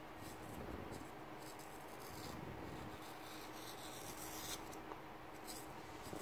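A loose 9 mm Dorco 30-degree snap-off cutter blade, held in the fingers, slicing a thin strip off the edge of a sheet of paper: faint, repeated scratchy strokes as the blade cuts through. The blade cuts the paper quite well.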